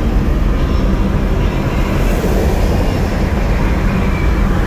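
Steady rumble of engine and road noise inside a 1970 Oldsmobile Rallye 350 cruising at freeway speed, carried mostly in the low register by its 350 V8.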